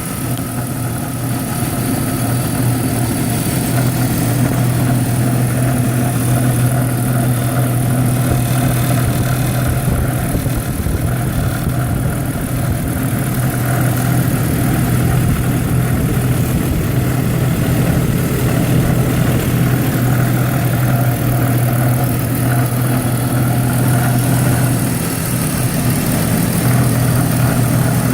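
A 2001 BMW 530i's 3.0-litre inline-six engine idling steadily with a low, even drone. This is the growling noise that the owner cannot pin on the belt tensioner or on something else.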